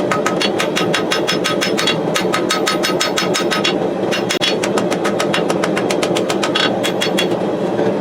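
Rapid light hammer blows on hot steel over an anvil, about five a second, each with a bright ring, pausing briefly a little before halfway and stopping near the end. Under them runs the steady roar of the gas forge's burner.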